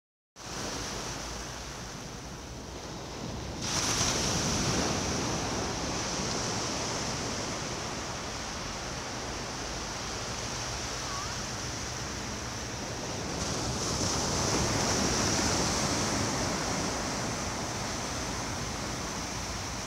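Small waves breaking and washing up a sandy beach: a steady rush of surf that grows louder a few seconds in and swells again later.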